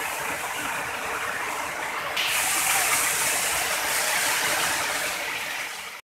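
Steady rushing of a waterfall and stream, a constant hiss of falling water that grows louder and brighter about two seconds in.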